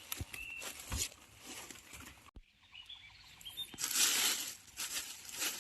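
Rustling and crackling of leaves and undergrowth in a bamboo grove, with small clicks and snaps, as someone moves through it searching for shoots. A few short bird chirps sound over it, and the sound breaks off abruptly for a moment a little over two seconds in.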